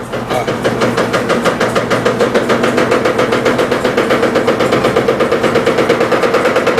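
Electrolux LT15F top-loading washing machine on its spin cycle, with a fast, even knocking of about nine beats a second over the motor hum that builds to full loudness in the first second: the spin noise that the owner traces to the drain hose knocking against the cabinet.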